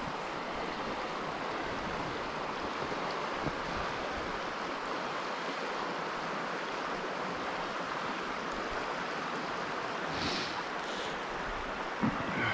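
Creek water rushing steadily, with a short thump near the end.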